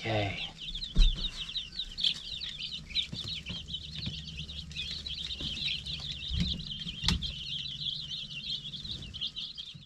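A brooder full of baby chicks peeping continuously, dozens of short high chirps overlapping. A low thump comes about a second in and a sharp click about seven seconds in.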